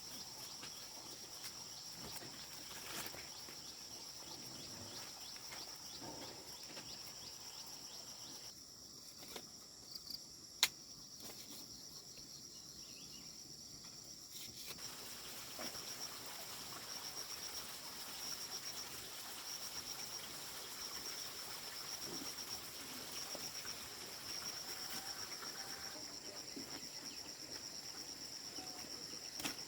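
Insects calling in a steady high-pitched drone that turns into a fast pulse in the second half, with light rustling and one sharp click about ten seconds in.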